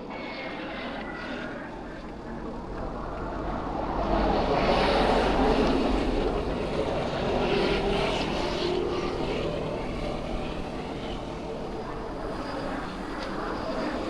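A motor vehicle passing by, its noise swelling to a peak about five seconds in and then fading away slowly.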